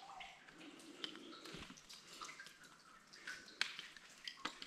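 Water dripping into standing floodwater in a mine tunnel: scattered faint drips and plinks at uneven intervals over a low trickle.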